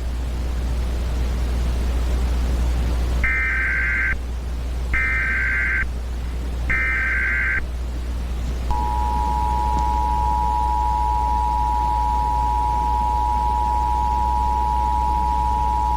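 Emergency Alert System tones: three short bursts of warbling data tones (the SAME header), then about a second later the steady two-tone attention signal, held for the rest. A constant low rumble runs underneath.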